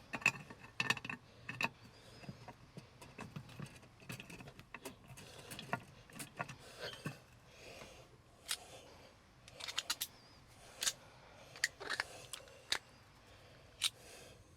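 Hand tools and small metal parts clicking and clinking irregularly, with scattered sharp taps, as a gas water heater is worked on.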